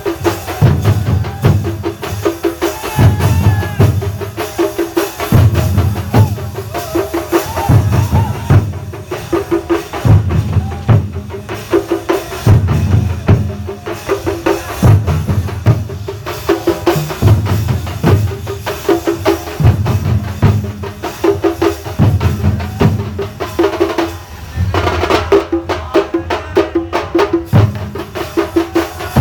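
A Thambolam percussion ensemble playing drums in a fast, repeating rhythmic pattern, with low drum strokes in regular groups and a wavering melody line above them.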